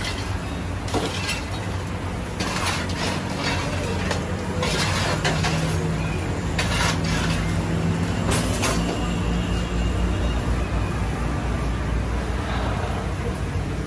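Street ambience: a steady low traffic rumble, with a few short, sharp noises breaking through over it.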